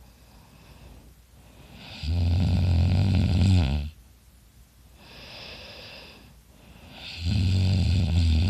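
A person snoring loudly in sleep: two long, loud, low buzzing snores about five seconds apart, with a softer breathy breath between them.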